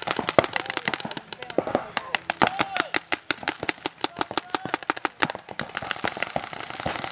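Paintball markers firing in rapid strings of sharp pops, several shots a second, during a match.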